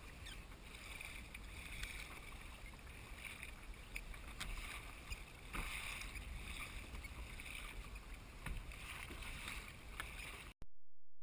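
Wind and choppy sea water around a fishing kayak, heard on a camera mounted on the hull, with a few sharp clicks and knocks scattered through. The sound cuts off suddenly near the end.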